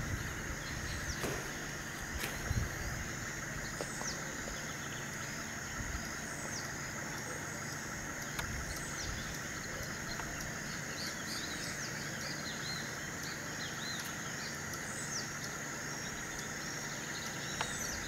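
Rural tropical outdoor ambience: a steady, high-pitched insect drone, with short, falling high chirps scattered irregularly throughout.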